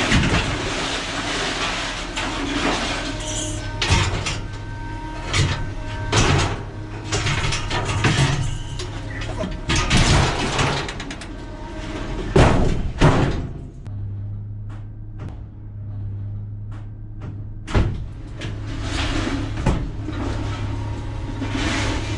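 Scrap metal being unloaded and thrown onto a scrap yard pile: irregular clanks and bangs, the loudest a little past the middle, over a steady low hum.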